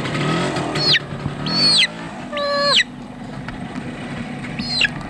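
A motorcycle engine revs up and down and then runs steadily. Over it, a young chicken gives short, high squawks that fall in pitch, several times, the loudest sounds here.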